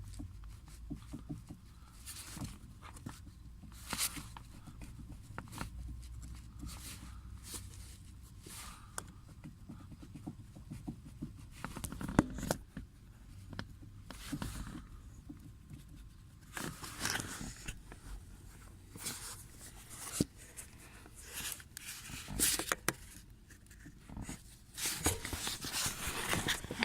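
Irregular clicks and knocks from a Toyota Avensis T27's intermediate shaft, the knock of a fault in that shaft, coming thicker and louder in the second half over a steady low hum.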